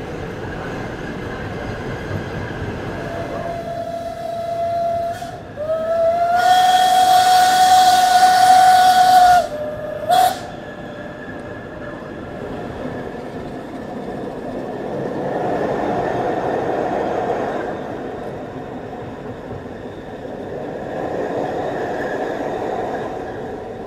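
Steam locomotive whistle of the Brünig Steam Railway: a softer tone first, then a loud blast of about four seconds with a hiss of steam, then one short toot, over a steady rumble.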